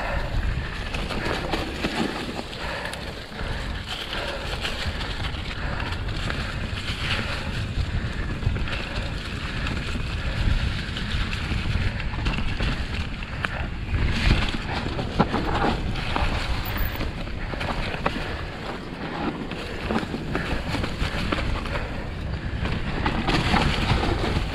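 Mountain bike riding down a leaf-covered dirt trail: steady tyre noise through the leaves, with frequent small knocks and rattles from the bike over rough ground, and wind on the microphone.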